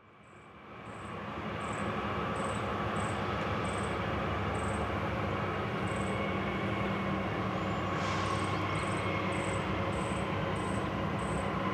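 Norfolk Southern diesel freight locomotives running, a steady heavy engine drone that swells over the first couple of seconds and then holds.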